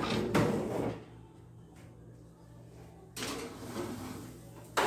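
Metal baking pan of lasagna handled and slid into a kitchen oven: a clatter in the first second, then a scraping slide lasting about a second and a half in the second half.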